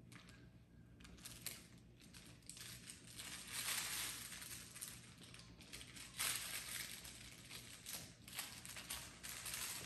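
Soft rustling and crinkling in uneven bursts as a plush dog toy is handled and shaken close by, loudest about four and six seconds in.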